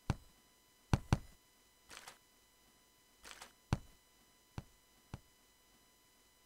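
Cartoon sound effects: about six short, sharp knocks or taps, irregularly spaced, with two softer swishing sounds between them.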